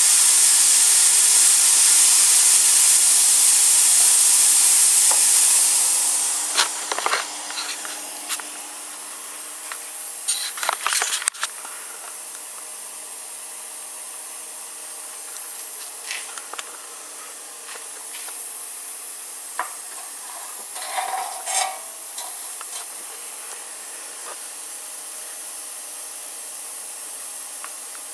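Plasma torch cutting steel with a loud, steady hiss that fades out about six seconds in as the cut ends. Scattered metallic clinks and knocks follow.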